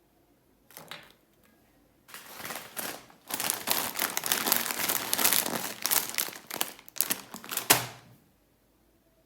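Candy wrapper being crinkled and handled: a short rustle, then several seconds of dense crackling that stops with one sharp loud crinkle.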